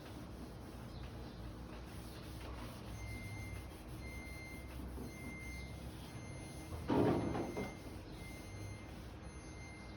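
Refrigerator's door-open alarm beeping, a short high beep repeating about once a second from about three seconds in, because the door has been left open. A brief louder scrape or rub comes about seven seconds in.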